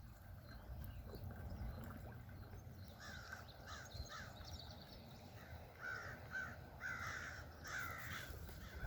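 A bird calling outdoors in a series of short calls, about two a second, starting about three seconds in and running on to near the end.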